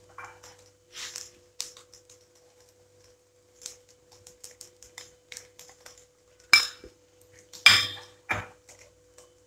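A white serving dish tapping and clinking against the rim of a nonstick cooking pot as spices are tipped in: scattered light taps, then three sharper knocks in the last three seconds.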